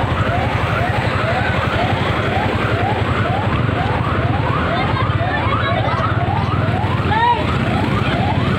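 A siren sounding a rapid rising yelp, about two sweeps a second, over the steady low running of a vehicle engine.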